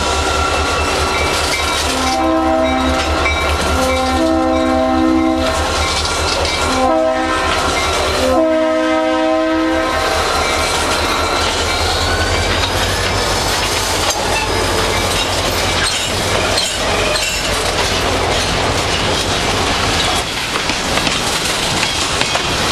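A freight train's cars rolling past with a steady low rumble and wheel clickety-clack. Over it, the lead GP40-2's three-chime Leslie RS3L horn blows the grade-crossing signal in the first ten seconds: long, long, short, long.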